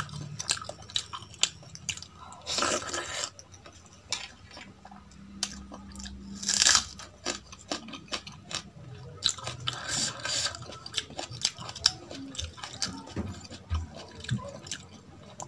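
Close-up eating sounds: fingers squishing rice, kadhi and fried pakoras against a steel plate, mixed with chewing. Louder bursts come about three and seven seconds in.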